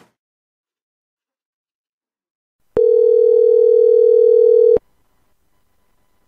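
Telephone ringback tone: one steady ring tone lasting about two seconds, coming in a little under three seconds in after silence, heard by a caller waiting for the other end to answer.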